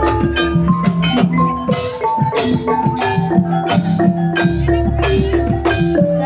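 Javanese gamelan playing ebeg accompaniment: struck bronze metallophones ring out a stepped melody over drumming, with a deep low note swelling and ringing about four and a half seconds in.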